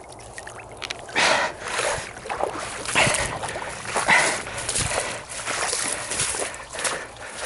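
Live decoy duck hen quacking loudly in a few separate calls, about 1, 3 and 4 seconds in, as she is handled and carried, over footsteps through wet, muddy grass.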